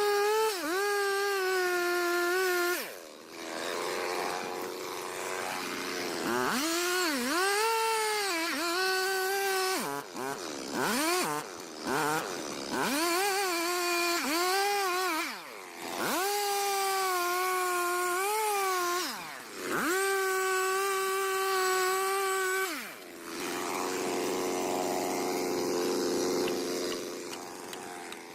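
Chainsaw engine revving hard in about five bursts of a few seconds while cutting wood, its pitch dipping and recovering within each burst and dropping back to a lower idle between them.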